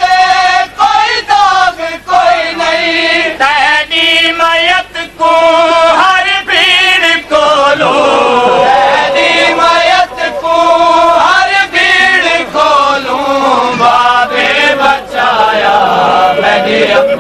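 Noha recitation: voices chanting a Punjabi Shia lament in chorus, in long, held, wavering melodic lines.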